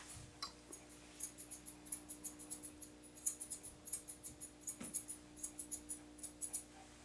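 Curved grooming scissors snipping the hair around a dog's paw: a quick run of crisp metal snips, several a second, starting about a second in and stopping near the end, over a faint steady hum.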